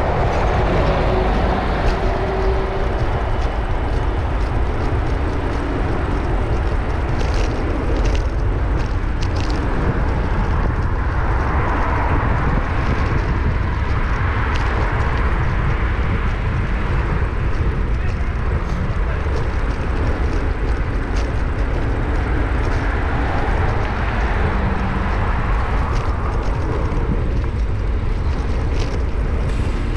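Steady wind buffeting on a bicycle-mounted GoPro Hero8's microphone while riding, over city street traffic, with a few brief clicks.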